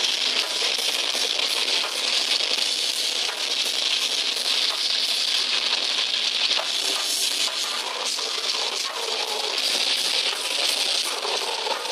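Death metal band playing live at full volume: distorted electric guitars and drums blur into one dense, harsh wash with almost no bass.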